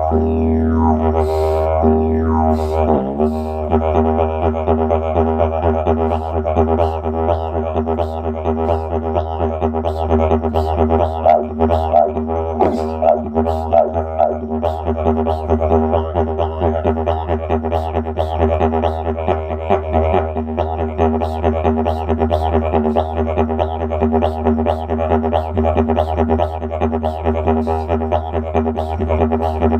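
Didgeridoo played as a continuous low drone, with a rhythmic pattern pulsing through its overtones and sliding sweeps in the overtones in the first few seconds.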